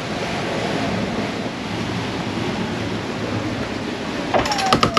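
Steady rush of wind and sea, then near the end a sheet winch clicking as its handle is cranked to trim the genoa sheet, with a falling squeak over the clicks.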